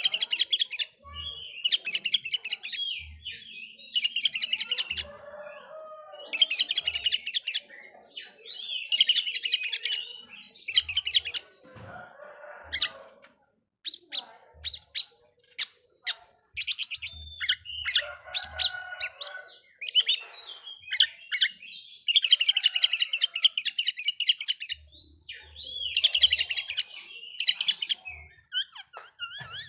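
Oriental magpie-robin (kacer) singing in repeated fast, chattering phrases of about a second each, high-pitched, separated by short pauses and a few lower squeaky notes.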